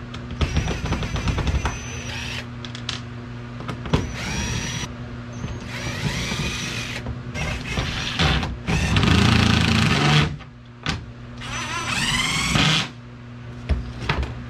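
Cordless drill run in a series of short trigger pulls, its motor whine rising in pitch each time it spins up, while fasteners are backed out of a boat's dash.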